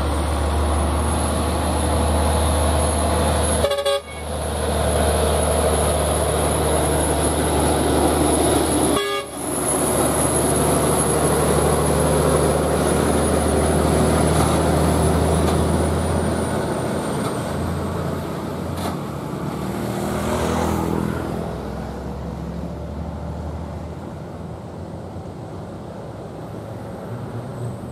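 Diesel engine of a FAW JH6 tractor unit running steadily as it hauls a lowbed trailer past, with a horn sounding; the engine sound fades in the second half as the truck moves away.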